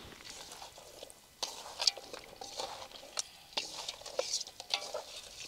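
Hands rubbing lemon juice into raw mutton pieces in a metal bowl: irregular wet squelches and slaps of meat, with one sharper click a little under two seconds in.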